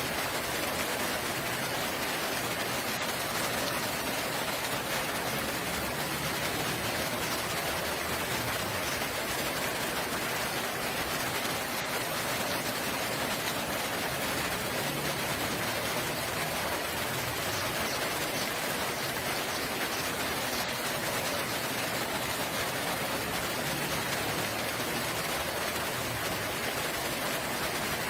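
Steady rain falling, a dense, even patter.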